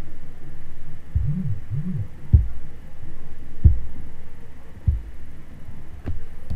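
Dull low thumps picked up by a microphone, about one every second and a quarter, over a steady low hum, with two short low rising-and-falling tones about a second in.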